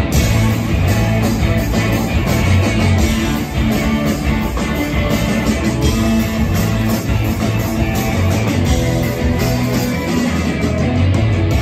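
Rock band playing live, an instrumental passage with no vocals: electric guitars over drums.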